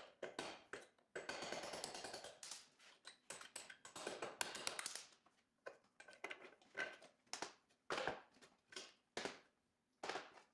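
Hammer tapping a punch to drive a shift rail out of a cast-iron Borg-Warner T19 transmission top cover, a series of sharp metal taps and clinks, with two stretches of metal scraping as the rail and fork are worked loose and slid out.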